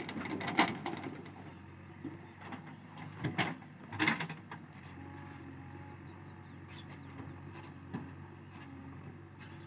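JCB 3DX backhoe loader's diesel engine running steadily. About half a second in there is a burst of clatter as the bucket empties soil into the tractor trolley. Further loud knocks come around three and four seconds, as the bucket swings back and bites into the ground.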